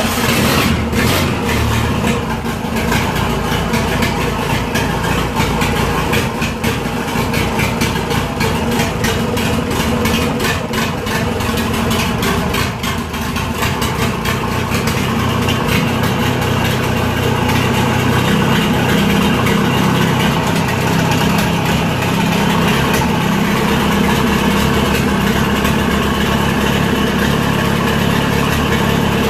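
Old Perkins diesel engine running just after a cold start. It runs unevenly for the first half, then settles into a steadier run whose low note strengthens from about two-thirds of the way in.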